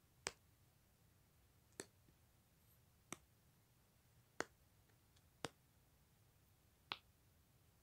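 Bubbles of a small silicone pop-it fidget toy being pressed through one at a time: six sharp pops, each about a second and a half apart.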